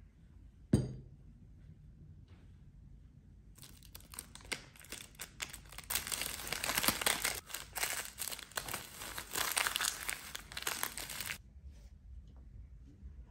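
Plastic cling film crinkling and rustling for about eight seconds as it is folded tightly around a nori-wrapped rice sandwich. A single sharp knock sounds about a second in.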